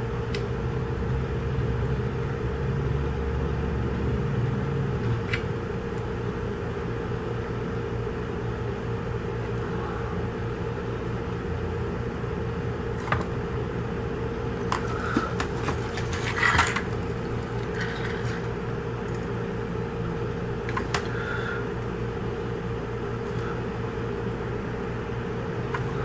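Steady machine hum, with a few light clicks and taps in the second half as the soldering iron and solder touch the pins of the instrument cluster's circuit board.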